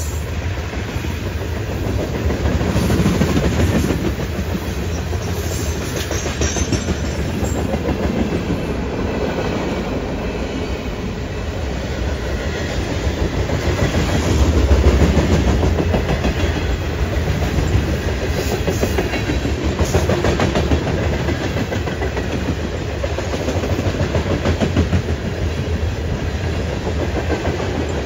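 Freight train cars rolling past, steel wheels clattering over the rail joints in a steady clickety-clack, swelling a little louder about halfway through.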